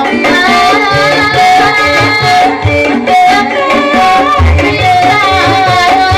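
Javanese ebeg accompaniment music: a gamelan-style ensemble with a wavering sung melody over repeated low hand-drum strokes.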